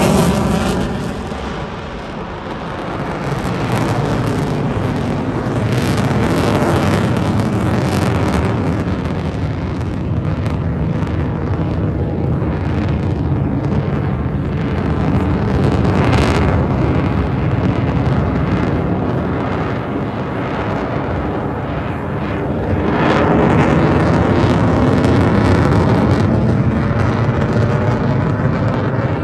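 The single F135 jet engine of a USAF F-35A fighter, loud and continuous, swelling and fading as the jet flies its passes. It dips briefly a couple of seconds in, rises again a few seconds later and is loudest in the last quarter.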